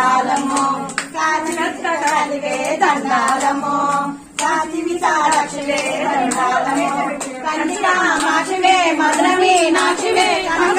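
Women singing a devotional song to the goddess, clapping their hands in a steady rhythm, with a brief break about four seconds in.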